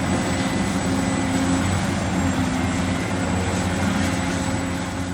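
Excavator engine running steadily: a low, even hum with a faint thin whine above it.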